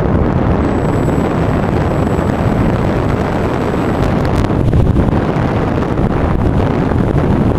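Wind rushing over the microphone of the camera on a Bixler 2 foam RC plane in flight, a loud steady roar. A thin high whine runs through it from about half a second in until about four seconds in.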